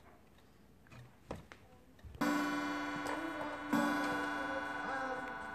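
A chime sounds twice, about a second and a half apart: the first note starts suddenly about two seconds in, and the second rings on and fades slowly. A few faint clicks come before it, and a child's voice comes faintly over the chime.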